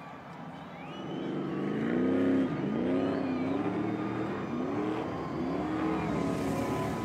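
Stadium Super Truck race engines revving hard, the pitch climbing and dropping again and again as the drivers work the throttle. The sound grows louder about a second in as the trucks come near.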